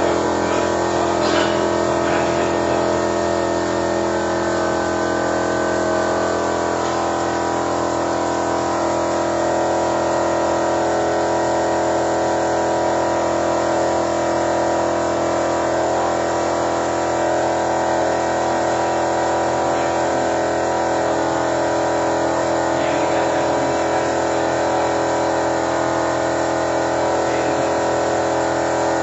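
Steady mechanical drone of a running machine, with several constant tones and an even level throughout.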